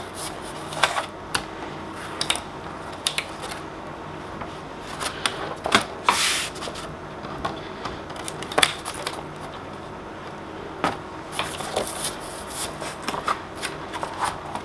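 Corrugated cardboard backing being handled and pressed into a picture frame: irregular taps, clicks and rustles, with a brief scrape about six seconds in.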